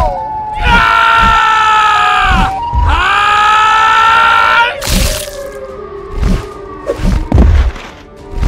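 Siren Head's distorted siren call, a cartoon sound effect: two long blaring wails, each sagging in pitch as it cuts off, followed by a run of heavy thuds.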